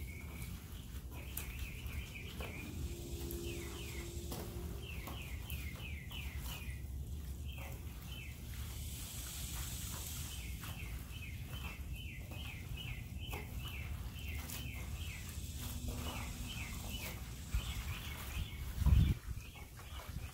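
A bird chirping in quick runs of short, high notes, repeated many times over a steady low rumble. One loud low thump comes near the end.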